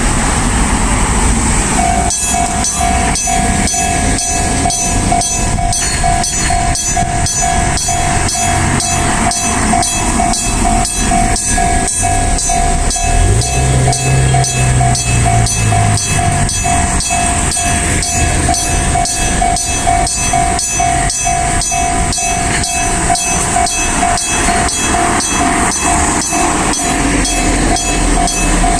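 Electric bell of an Enoden level crossing ringing in rapid, even strokes, starting about two seconds in: the crossing's warning that a train is approaching.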